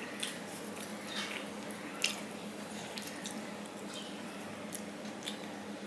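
Quiet sounds of eating by hand from a steel plate: soft wet squishes of rice and curry being mixed and picked up, with scattered light clicks, the sharpest about two seconds in, over a steady low hum.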